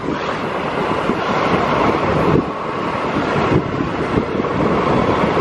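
Wind rushing over the microphone and road noise from a moving Yamaha NMAX scooter, steady and loud throughout.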